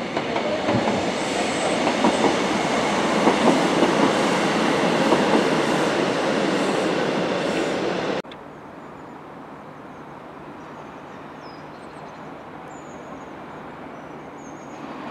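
A train running close by on the rails, a loud steady rush of wheel and running noise that cuts off abruptly about eight seconds in, leaving a much quieter, steady background.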